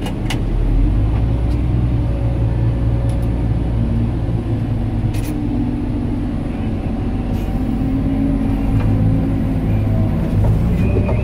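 Cat 988H wheel loader's diesel engine and drivetrain heard from inside the cab: a loud, steady rumble whose note rises and falls slightly as the machine moves, with a few short clicks.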